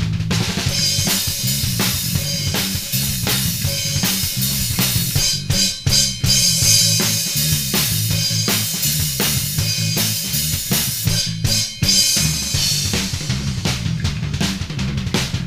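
Drum kit and bass guitar jamming together: busy kick, snare and rimshot hits under a wash of cymbals, over a moving bass line. The playing drops out briefly twice, about six seconds in and again about twelve seconds in.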